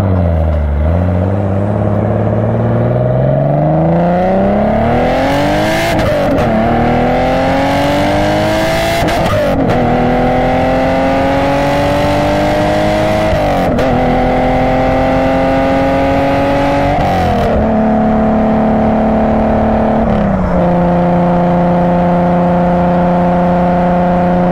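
Datsun Z's L28 straight-six engine, heard inside the cabin, accelerating through the gears of a swapped-in Nissan CD009 six-speed gearbox. The revs climb and drop with an upshift four times, every three to four seconds, then hold steady, with one more shift a few seconds before the end.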